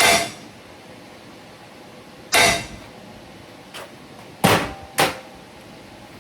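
Metal parts and tools knocking against metal: four sharp clanks at uneven intervals, each with a short ring, the last two half a second apart.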